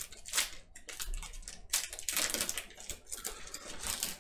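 Foil trading-card pack crinkling and tearing open, then the cards being handled: a run of irregular crackly rustles.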